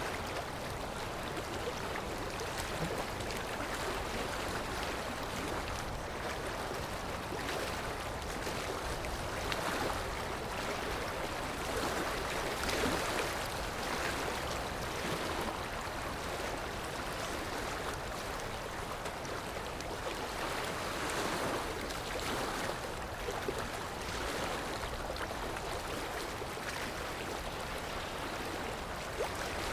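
Sea waves washing in, a steady rushing wash that swells and eases every few seconds.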